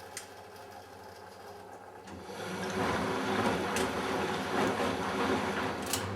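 Matura Autostatic 850 washing machine mid-cycle: a quiet hum with a click, then about two seconds in a loud water sound starts in the machine and swells, with a few sharp clicks.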